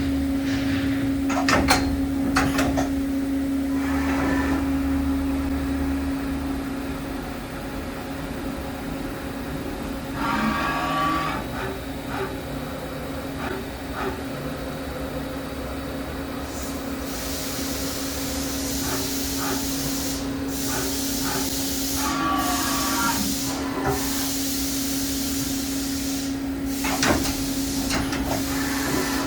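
Daewoo DMV4020 CNC vertical machining center running: a steady hum with scattered clicks and two short mechanical whirs, and from a little past halfway a loud hiss that breaks off briefly several times.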